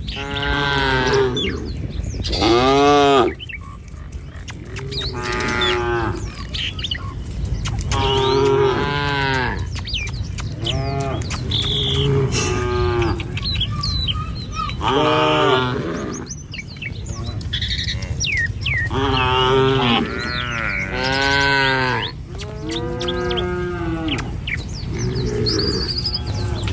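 A herd of cattle mooing over and over: about a dozen drawn-out calls at differing pitches from several animals, some close together, over a steady low rumble.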